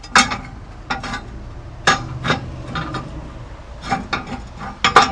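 Hard knocks and clatter, about eight spread over a few seconds with the loudest pair near the end, as the plates are set and shifted into place inside a Primo Oval XL kamado grill.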